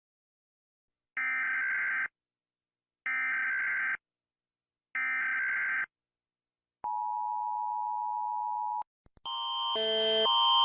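Emergency Alert System alert tones: three short bursts of screeching data tones (the SAME header) about two seconds apart, then a steady beep tone for about two seconds. About nine seconds in, a louder alarm of alternating tones starts and grows louder.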